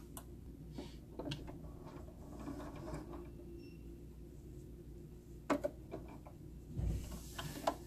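Quiet handling sounds: a few light clicks and a soft bump about seven seconds in, as fingers pull the lower thread up through the needle plate of a Brother LX3817 sewing machine, over a faint steady low hum.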